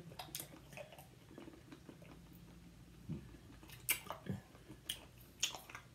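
Faint, wet mouth smacks and clicks of someone chewing a grape Now and Later, a firm, chewy taffy-like candy. The clicks come irregularly, loudest about four and five and a half seconds in, over a faint low hum.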